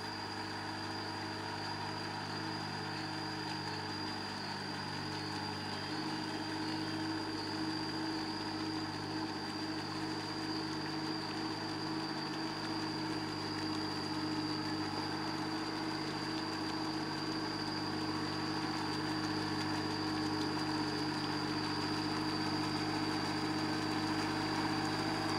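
Small Kubota diesel tractor engine running steadily while the tractor works a flooded rice paddy on cage wheels, growing slowly louder.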